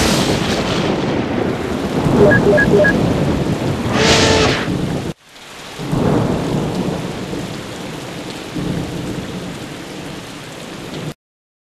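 Edited soundtrack of steady rushing, rumbling noise with three short beeps about two seconds in and a brief burst about four seconds in. The noise cuts off suddenly after about five seconds. A second rushing swell then rises and slowly fades before stopping abruptly near the end.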